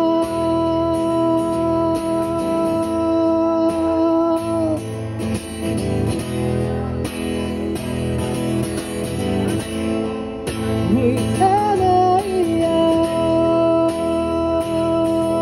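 Acoustic guitar strummed under a male voice singing: a long held note, several seconds of guitar alone, then a sliding vocal phrase that settles into another long held note.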